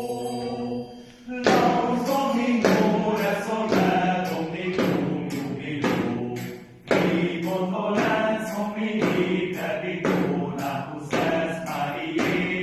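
A small a cappella male choir singing. A held chord ends; after a short pause the voices come in with a new phrase about a second and a half in, and there is another short breath break about six and a half seconds in.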